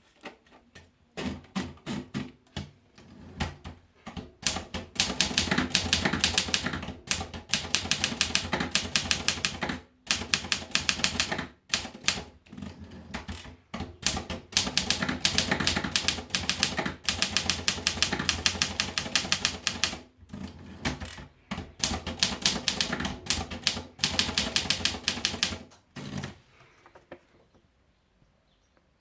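Torpedo Classic 18 manual typewriter being typed on: fast runs of key strikes broken by short pauses, stopping a couple of seconds before the end.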